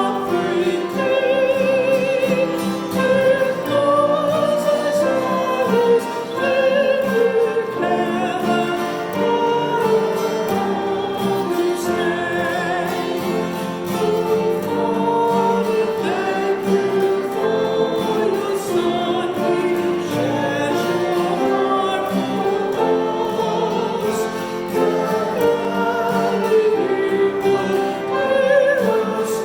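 Church music: voices singing held, wavering notes with vibrato over instrumental accompaniment, without a break.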